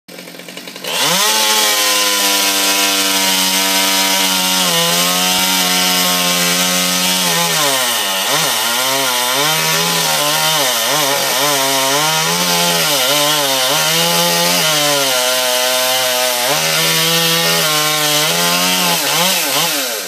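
Chainsaw running at high revs, starting about a second in; through the middle its pitch repeatedly sags and recovers as it loads in the cut, then it steadies and winds down near the end as the throttle is released.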